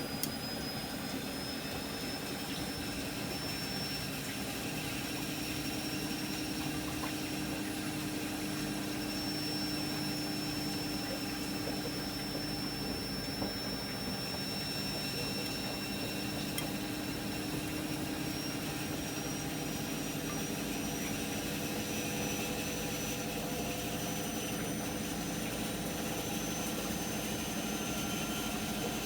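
Miele MedicWash W2585 washing machine running its hygiene programme: a steady mechanical hum with a faint high whine that slowly rises in pitch.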